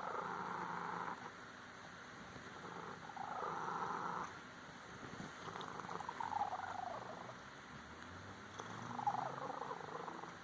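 Pet cat making soft purring trills, the tribble-like cooing sounds, four or five separate calls, the later ones sliding down in pitch.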